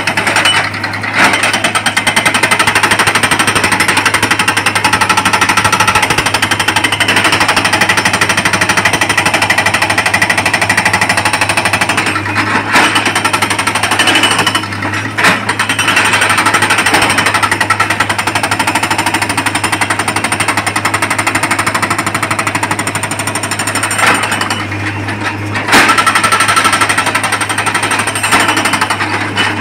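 Hydraulic rock breaker on a Tata Hitachi excavator hammering rock in a rapid, continuous rattle of blows, stopping briefly a few times. The excavator's engine hums steadily underneath.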